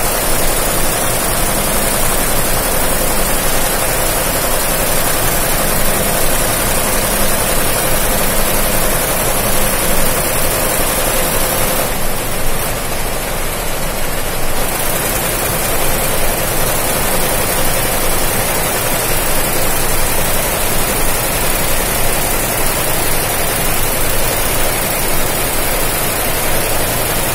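Multi-head computerized embroidery machine running, a steady loud mechanical noise with a rapid rattle from its needle heads. A faint steady hum in it drops out about halfway through.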